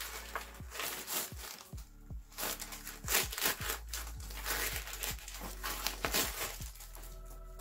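Paper wrapping on a new handbag crinkling and rustling in irregular crackles as the bag is handled and turned, over soft background music.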